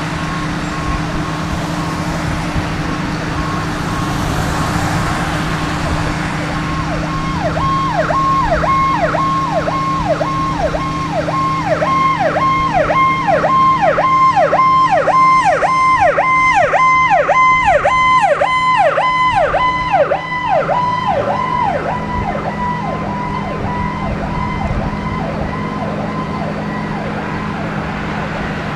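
Ambulance siren: at first a steady distant tone, then from about seven seconds in a fast yelp of two or three sweeps a second. It grows louder toward the middle and fades away by about three-quarters of the way through, over steady road traffic.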